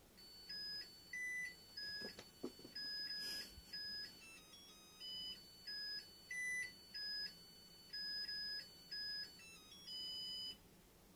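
An electronic beeping melody: a simple tune of plain, pure tones stepping from note to note, playing until shortly before the end. Two faint knocks come about two seconds in.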